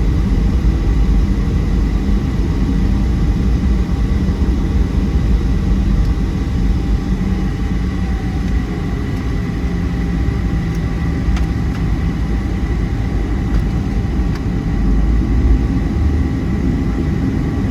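Cabin noise inside a Boeing 737-700 with its CFM56-7B engines running: a steady, loud rumble with a thin, steady whine.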